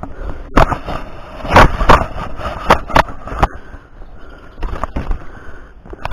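Irregular knocks, clicks and rustling of a hand-held camera being jostled while walking through woodland undergrowth, with several sharp knocks about a second to three and a half seconds in.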